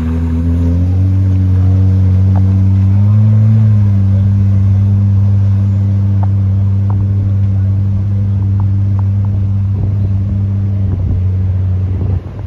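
Engine of a car-shaped watercraft running steadily under way on the water, its pitch stepping up about a second in and rising briefly around three seconds in.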